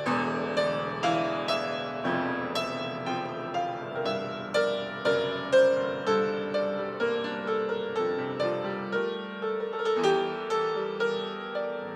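Piano playing the instrumental introduction to a slow hymn: a melody of single struck notes over chords, each note fading after it is struck, at about two notes a second.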